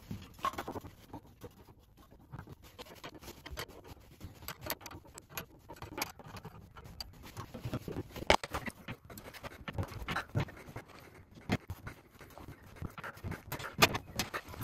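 Hands working a new stainless steel petrol line into its fitting on a car's petrol tank: irregular clicks, taps and scrapes of metal, with a sharper click about eight seconds in and another near the end.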